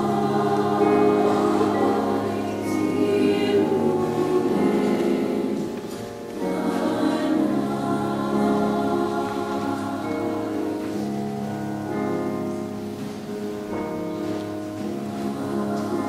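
A girls' choir singing, with held notes and a brief softer moment between phrases about six seconds in.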